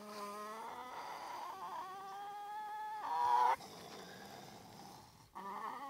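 A young raccoon dog caught in a cage trap calling: a long drawn-out whining call lasting about three and a half seconds and swelling louder just before it stops, then a second call starting near the end.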